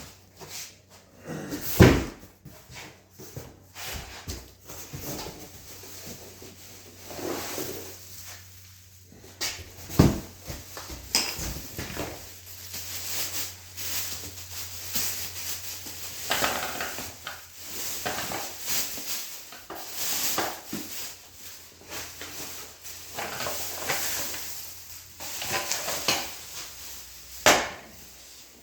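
Packaging of a new motorcycle seat being handled and unpacked: irregular rustling and scraping with small clicks, and a sharp knock about two seconds in and another about ten seconds in.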